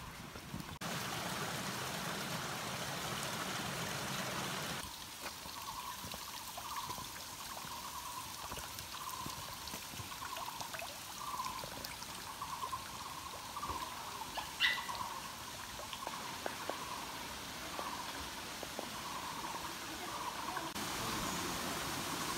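Running water trickling through forest ambience. From about five seconds in, a soft call repeats every second or so.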